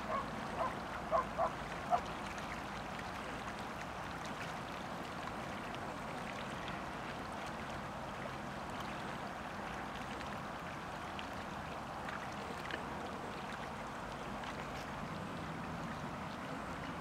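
Chilean flamingos honking, a quick run of about five short calls in the first two seconds. Then only a steady background of rippling water.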